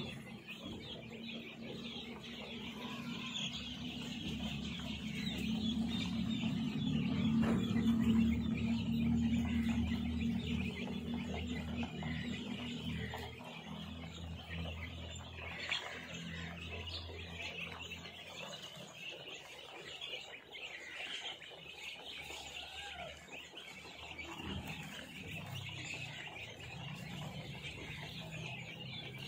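A large flock of day-old chicks peeping continuously, many high chirps overlapping into a steady chatter. A low hum underneath grows louder for several seconds and then eases.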